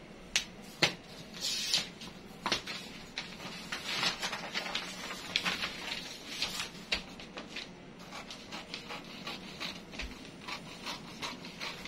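Paper pattern pieces rustling and scraping as they are handled and slid on a cutting mat, with small knocks from tools being picked up. Near the end, scissors snip into the paper pattern.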